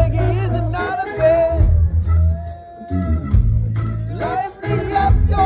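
Live rock band heard from the audience through the PA: electric guitars, bass and drums with a singer's voice. The singer holds one long note near the middle.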